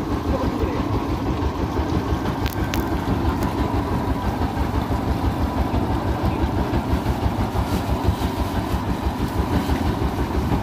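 Fishing boat's engine running steadily, a fast even throb, with a couple of short sharp knocks about two and a half seconds in.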